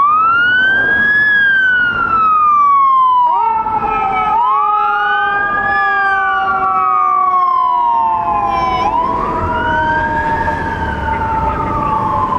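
Fire engine siren wailing, its pitch sweeping slowly up and down about every four to five seconds. About three seconds in, a second, steadier siren tone joins it and slowly drops in pitch.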